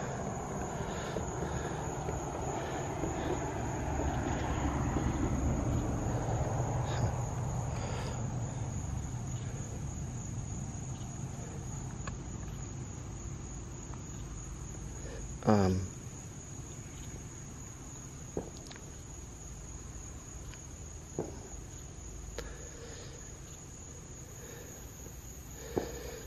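A car drives past and its low rumble swells and then fades over the first ten seconds or so, with crickets trilling steadily throughout. About halfway through there is one short, sharp sound.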